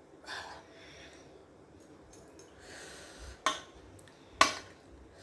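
A woman breathing, with two sudden, sharp hiccups about three and a half and four and a half seconds in. The hiccups are brought on by eating hot green chillies.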